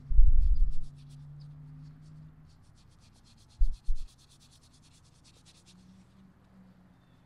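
Fingers rubbing a corroded modern penny to clean off its date: a fast run of short scratchy strokes, about ten a second, for nearly three seconds. Low handling thumps come in the first second, the loudest sound, and twice more just before the rubbing peaks.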